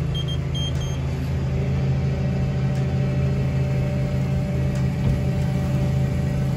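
New Holland T7.190's six-cylinder diesel engine running steadily at raised revs, heard inside the cab, with the PTO driving a Bogballe fertiliser broadcaster. A few short high electronic beeps from the cab control terminal come in the first second.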